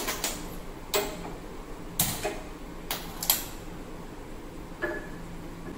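Gas stove burner's ignition clicking as the knob is turned to light it: sharp clicks about a second apart, several in quick pairs.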